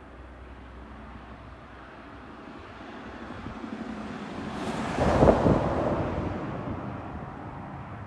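A vehicle passing by: a noisy swell that builds slowly, peaks about five seconds in, then fades away.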